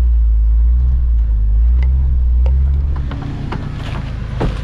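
Toyota Land Cruiser's engine running with a steady low rumble, heard from inside the cabin while the truck is being winched up a rocky slope. About three seconds in the sound drops to a quieter, rougher outdoor rumble with scattered clicks and knocks.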